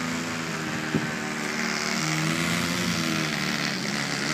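Window vibrating in the wind, making a farting buzz with a steady pitched drone that steps up and down in pitch, like a four-stroke motocross bike's engine. A short knock about a second in.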